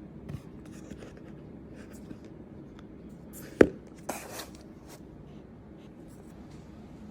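Hands handling the cardboard packaging of a new laptop: small clicks and taps, one sharp knock about three and a half seconds in, then a short scraping rustle.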